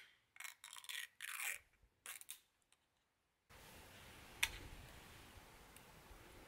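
Aluminium drink can's pull tab cracked open, followed by several short hissing, scraping bursts over the next two seconds. Then, after a gap, a faint steady background with a single sharp click.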